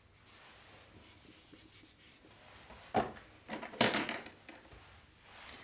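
A sharp click about three seconds in, then a short burst of rubbing as the arrowhead and plus sign are wiped off a whiteboard.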